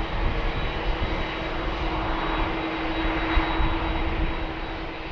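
Boeing 747-400 jet airliner's engines at takeoff, a steady rumble with a droning hum, beginning to fade near the end.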